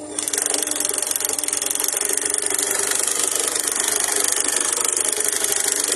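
Rail sleeper-laying gantry machine running: a loud, rough mechanical rattle that starts abruptly and cuts off about six seconds later.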